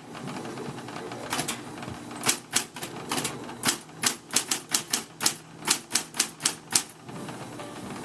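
Old typewriter being typed on: keys striking in quick, irregular runs of sharp clacks, starting after a short pause and stopping about a second before the end.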